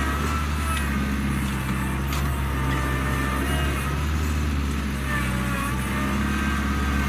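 Compact diesel engine of land-clearing machinery running steadily under work, with faint thin whines coming and going above it.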